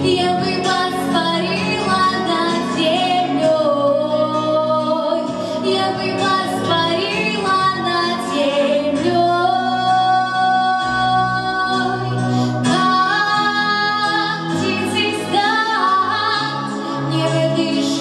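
A young woman singing solo into a microphone over instrumental accompaniment, with long held notes.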